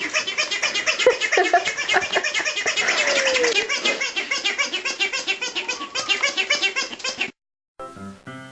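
People laughing hard in rapid, overlapping bursts. It cuts off suddenly about seven seconds in, and acoustic guitar music starts near the end.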